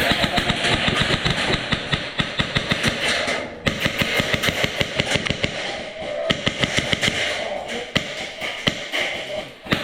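Airsoft guns firing in rapid strings of shots, many a second, with a brief break about three and a half seconds in.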